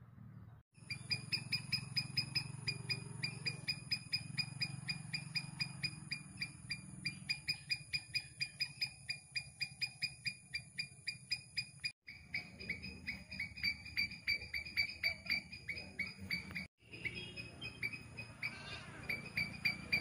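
Palm squirrel calling: a rapid, even run of short, high chirps, about four a second, over a steady high-pitched tone. The run breaks off briefly twice.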